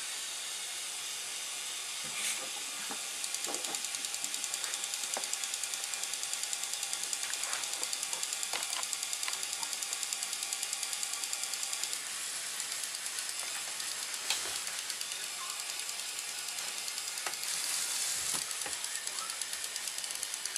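Small electric motors and plastic gear trains of a remote-controlled Lego Technic truck running, a continuous whirring rattle with a fast, even pulse, broken by a couple of sharp clicks.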